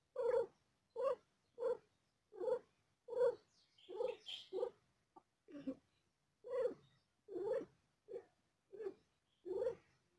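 Domestic cat giving birth, making short, low purr-like moans in a steady rhythm, about one and a half a second.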